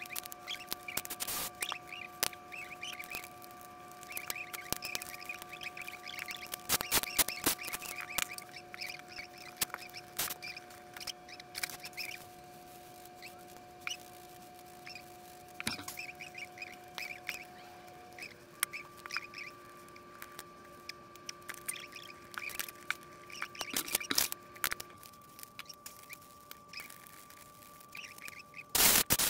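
Small hand tools and plastic and metal parts of an Arrma Mojave RC truck clicking, tapping and rattling as the truck is taken apart on a workbench, over a faint steady whine. A loud rustle of a paper towel comes near the end.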